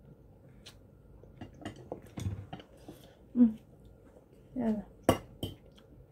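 Fork and wooden chopsticks clicking and scraping against plates as noodles are eaten, in scattered light clicks with a sharp clink about five seconds in. Twice a short vocal sound, the louder about three and a half seconds in.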